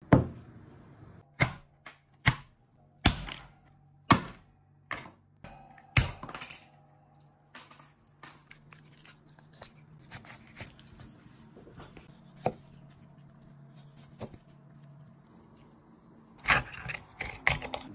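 A large shellfish shell being cracked open on a wooden board: about seven sharp cracks and knocks in the first six seconds, then quieter scraping and wet handling as the meat is worked out of the broken shell, and a quick run of clicks and knocks near the end.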